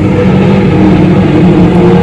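Loud, steady low drone over a rumbling noise, with a few held tones that shift in pitch now and then: an unexplained sound coming from the sky, of the kind reported as 'strange sounds'.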